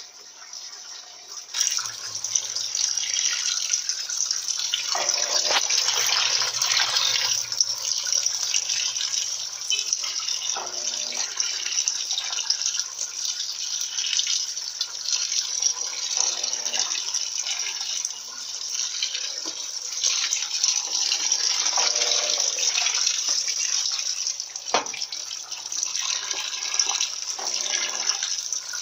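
Electrolux Turbo LT12B washing machine filling its drum with water, a steady rush of incoming water that gets sharply louder about a second and a half in. The machine is filling to its extra-low water level.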